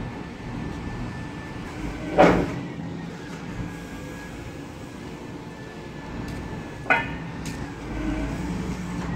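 Wheeled material handler's diesel engine running steadily while the boom and grapple are worked hydraulically, with a faint steady high tone over the engine. Two sharp clunks sound, one about two seconds in and a louder-to-quieter second one near seven seconds.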